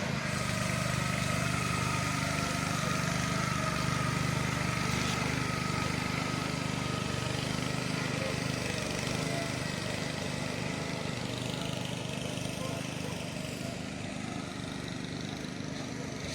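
An engine running steadily at an even speed, easing off slightly near the end.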